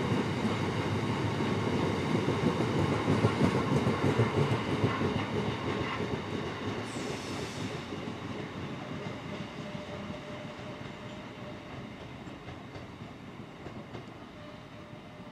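A long freight train of loaded box wagons rolls past: a heavy rumble and clatter of wheels on the rails that fades steadily as the train draws away. There is a brief high screech about seven seconds in.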